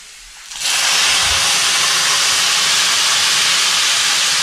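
Loud, steady sizzle of boiled, water-soaked taro leaves dropped into hot oil tempering in a kadhai. It starts about half a second in.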